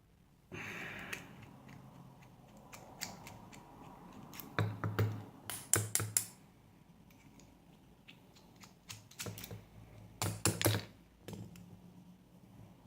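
Small metallic clicks and rattles of a padlock and hand tools being handled, with two short flurries of clicking about five and ten seconds in and scattered single ticks between.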